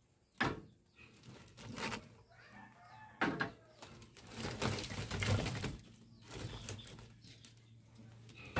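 Split firewood being stacked by hand: two sharp wooden knocks, about half a second and about three seconds in, with rougher scraping and shuffling of wood pieces between them.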